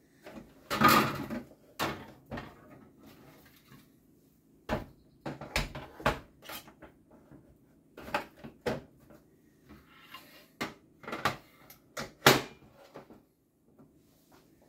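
Plastic clicks, knocks and scraping as a SodaStream Terra is handled while its gas cylinder is fitted and the back cover is put on. There is a longer scraping rustle about a second in and a sharp snap near the end, over a faint steady hum.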